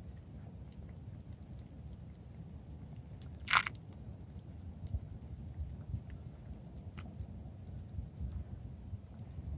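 Cats licking a lickable paste treat squeezed from a tube, with small wet licking and smacking clicks. One sharp, louder click about three and a half seconds in.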